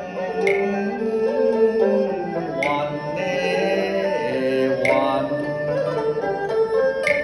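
Instrumental passage of Cantonese nanyin: guzheng (zither) plucking under a held, wavering melody line, with a sharp click on the beat about every two seconds.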